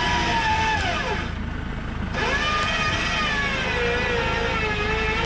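Electric winch on a Land Rover Defender 110 winding in under load to drag a fallen tree off the track. Its motor whine rises, falls away sharply about a second in, rises again, then settles at a lower, slightly wavering pitch as the load takes hold.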